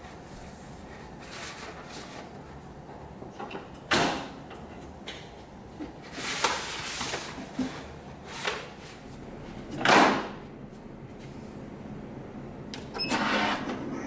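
Vinyl being handled and fed into a vinyl cutting plotter: a string of separate knocks and rustling bursts, the loudest about four and ten seconds in, with a longer stretch of handling noise near the end.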